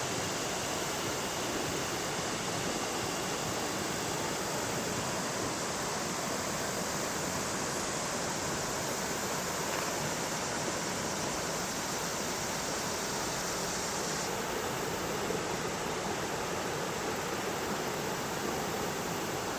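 Yellow River water flowing, a steady even rush with no breaks.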